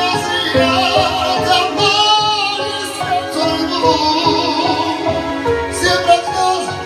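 Song music: a wavering melody with vibrato over a steady beat and bass line.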